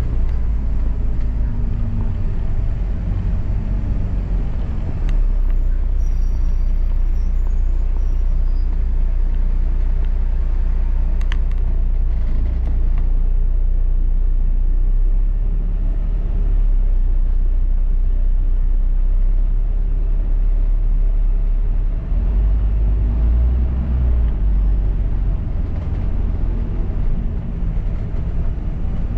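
Inside a moving London double-decker bus: a steady low rumble of engine and road noise, with a few brief clicks and rattles.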